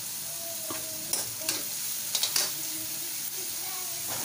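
Chopped onions sizzling in hot oil in a steel kadhai, frying toward light golden brown. A steel spoon scrapes and clinks against the pan a few times about a second in and again near the end.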